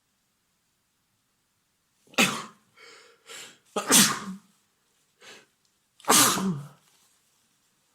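A man sneezing three times in quick succession, with short quieter breaths between the sneezes, starting about two seconds in. It is an allergic sneezing fit set off by cats.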